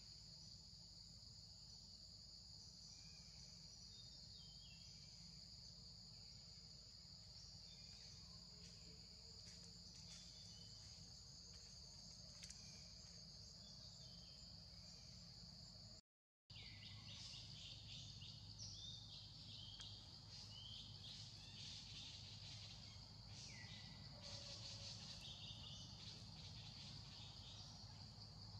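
Faint outdoor ambience: a steady high-pitched insect chorus, with short falling bird chirps that come more often in the second half. The sound cuts out for a moment about halfway.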